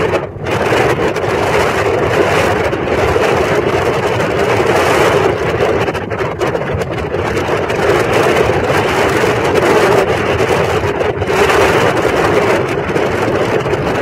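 Performance powerboat running at high speed: a steady, loud rush of engine drone, wind and water, with wind buffeting the microphone.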